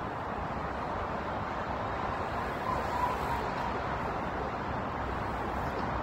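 Steady roar of distant road traffic, an even wash of noise with no single vehicle standing out.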